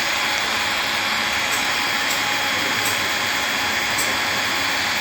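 Small DC motor of a homemade 3-axis CNC milling machine whirring steadily with a thin high whine, with a few faint light ticks.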